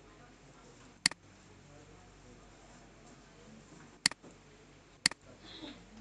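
Three sharp computer mouse button clicks, about one, four and five seconds in, each a quick press and release.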